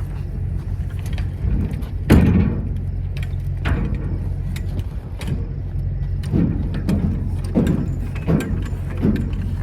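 Truck engine idling with a steady low hum, with a series of metallic knocks and clanks over it; the loudest clank comes about two seconds in.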